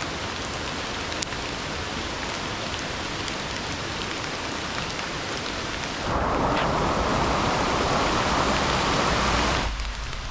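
Steady rain falling, a continuous hiss with faint scattered drop ticks. About six seconds in, a louder, deeper rush joins it for a few seconds and then stops abruptly.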